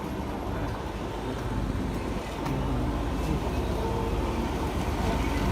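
Concrete mixer's engine running steadily, with a few light clicks, growing slightly louder toward the end.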